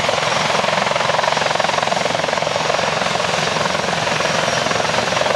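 Eurocopter X3 hybrid helicopter running on the ground at high power, its main rotor and two wing-mounted propellers spinning: a loud, steady rotor and propeller noise with a fast, fine pulsing.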